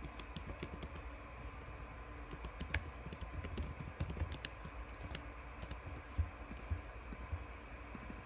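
Typing on a computer keyboard: a run of quick, irregular keystroke clicks.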